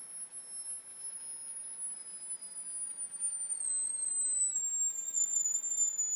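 High-pitched whine from a Royer oscillator driving a ferrite-core transformer, with a fainter lower tone alongside it. Both tones glide slowly down in pitch as the oscillator's frequency drops and its output voltage climbs.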